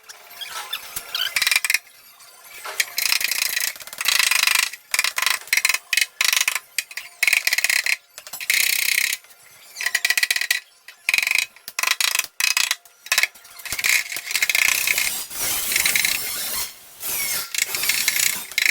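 Welding on a Vespa's steel body in many short bursts, a crackling that starts and cuts off abruptly every second or so with short pauses between.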